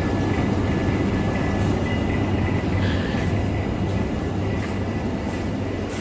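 Steady low hum of refrigerated glass-door display coolers running, with a thin high whine over it and a few faint ticks around the middle.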